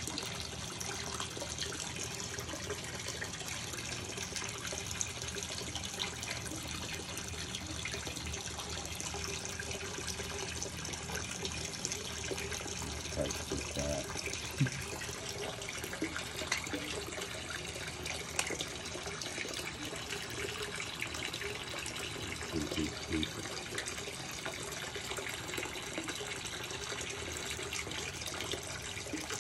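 Steady running and splashing of water from an aquarium filter's return into the tank surface, with a few small sharp knocks over it.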